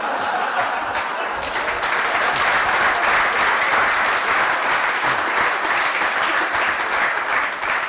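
Audience applauding, the clapping building over the first second or two and dying away near the end.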